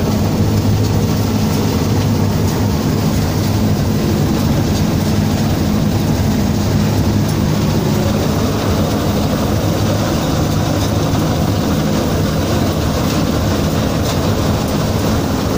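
Rice combine harvester running steadily while cutting paddy: a constant, loud engine drone with the noise of its machinery, shifting slightly about eight seconds in.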